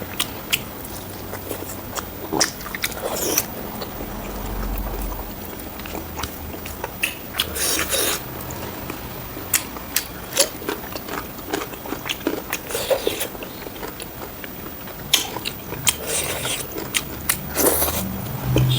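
Close-miked mukbang eating of pork ribs with rice: chewing and biting, with irregular sharp clicks and short wet, smacking bursts.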